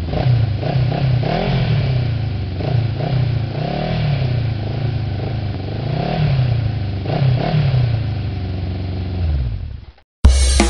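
Motorcycle engines revving, the pitch rising and falling again and again. The sound cuts off about ten seconds in and a drum loop starts just after.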